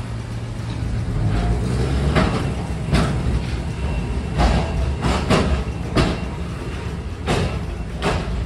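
Replica heritage streetcar running, a steady low rumble with a string of irregular sharp clicks and knocks.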